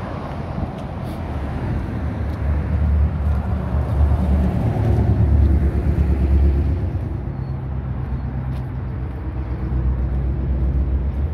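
A car passing by, its low engine and tyre rumble building to its loudest about halfway through and then fading.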